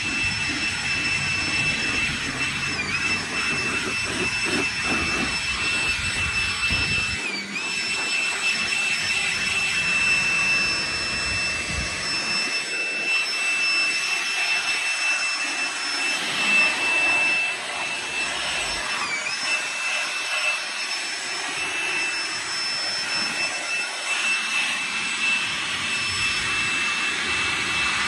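Handheld leaf blower running with a steady high whine and rushing air, blowing water off a freshly washed car's paint and glass. The whine dips briefly in pitch three times.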